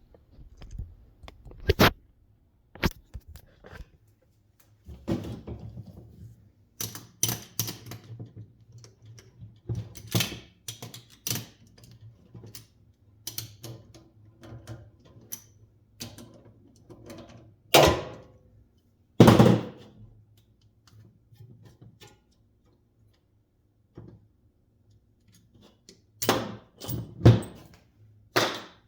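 Irregular knocks, clicks and clunks of tools and metal fan-motor parts being handled, with two louder knocks a little past the middle and a quick cluster of them near the end.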